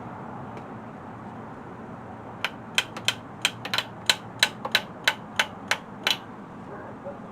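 About a dozen sharp clicks in an uneven run, roughly three a second, starting a couple of seconds in and stopping about a second before the end, over a steady background hum.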